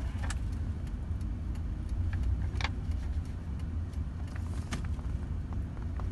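Car cabin while driving: a steady low rumble of engine and road noise, with a few light clicks, the loudest about two and a half seconds in.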